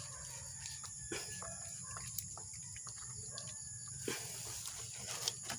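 Steady high-pitched chirring of insects, with a few faint clicks and scrapes as a plastic compression fitting is hand-tightened onto a PVC ball valve.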